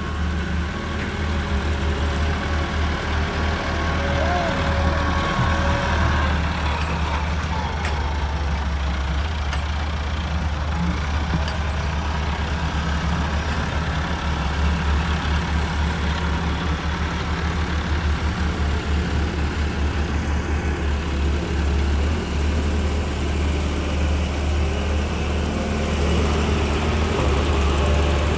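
Diesel engine of a Hyundai 130W wheeled excavator running steadily, a continuous low hum with no marked revving.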